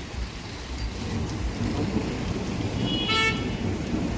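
Steady rain with a low rumble of traffic. A short vehicle horn toot comes about three seconds in.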